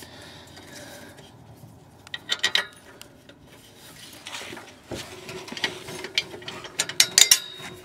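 Exhaust flange bolts being threaded in by hand: small metal clicks and scraping as fingers turn the bolts and rub on the steel flange and pipe. A faint steady hum joins about five seconds in.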